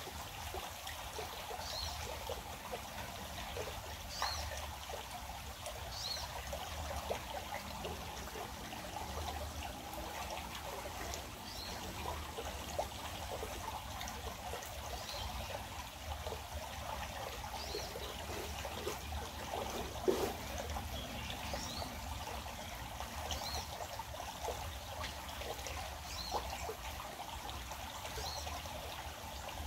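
Small stream trickling and flowing steadily, with short high chirps every few seconds and a few light clicks, the clearest about twenty seconds in.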